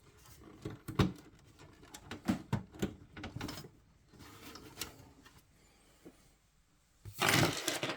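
Irregular clicks, taps and knocks of hands working inside a desktop PC case, fitting parts and plugging in cables, with a louder rustling scrape near the end.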